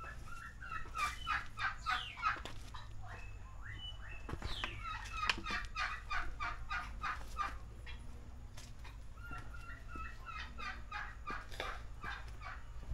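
A fowl calling in three bouts of rapid repeated notes, about four a second, each bout lasting two to three seconds.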